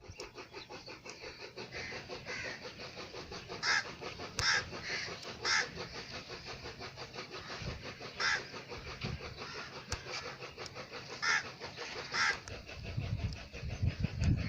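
Short bird calls, about six of them at irregular intervals, over a steady faint background. A low rumble starts near the end.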